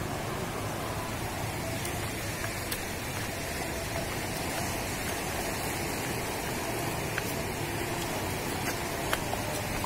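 Steady rushing of sea waves washing against a rocky shore in light drizzle, with a few faint taps.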